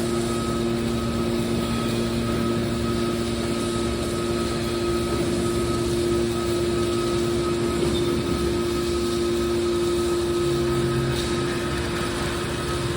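A machine running steadily with a constant hum and several held tones; one of the lower tones drops out about eight seconds in.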